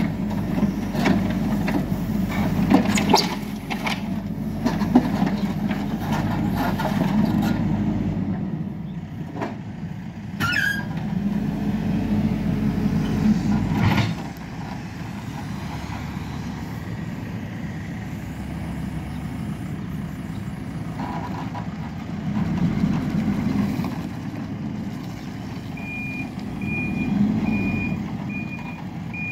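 Hidromek K4 backhoe loader's diesel engine working under load, with sharp knocks and clanks from the arm and bucket over the first half. After a last loud knock about halfway through, the engine settles to a quieter steady run, rising briefly a couple of times. Near the end the reversing alarm beeps at an even pace.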